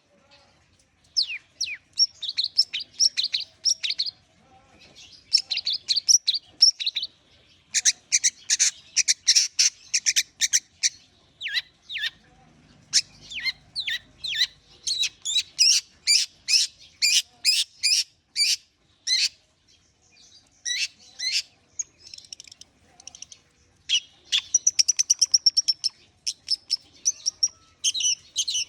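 Long-tailed shrike (cendet) singing: fast runs of sharp, chattering chirps in phrases several seconds long, broken by short pauses.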